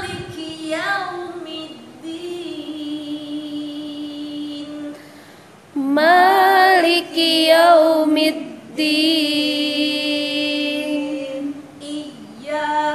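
A woman reciting the Quran in Arabic in the melodic chanted style: long held notes with wavering, ornamented turns. One phrase, a short break, then a louder phrase starting about halfway through.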